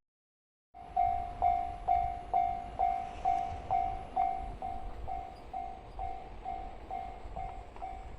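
Japanese railway level-crossing warning bell ringing, a repeated electronic ding about twice a second. It starts about a second in, is loudest for the first few seconds and softer after that, over a low rumble.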